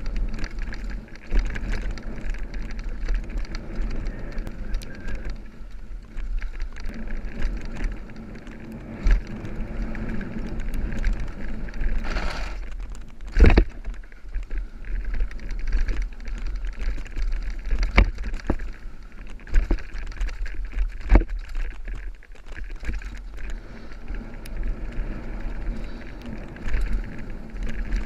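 Mountain bike descending a loose dirt trail: continuous rattle and crunch of the tyres and bike over dirt and gravel, with a low rumble on the bike-mounted camera's microphone. Several sharp knocks of the bike over bumps, the loudest about thirteen seconds in.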